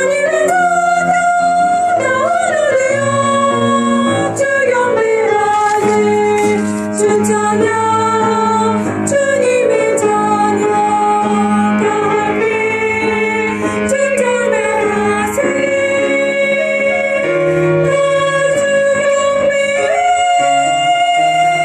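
Soprano voice singing a worship song over piano accompaniment, with long held notes in the second half.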